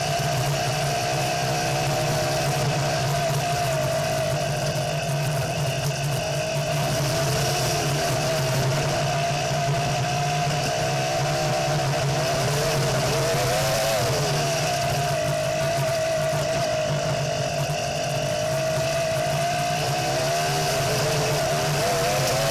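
Home-built off-road buggy's engine running as it drives along a dirt trail: a steady drone whose pitch briefly rises and falls a few times.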